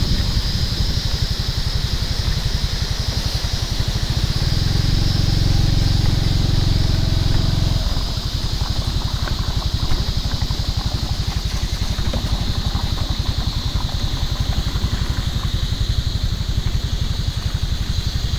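Small vehicle engine running at low speed with fast, even low pulsing, a steady high-pitched drone behind it. A louder engine hum comes in from about four to eight seconds in.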